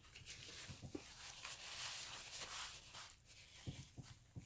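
Someone chewing a mouthful of fried chicken, with wet mouth noises and a few soft clicks.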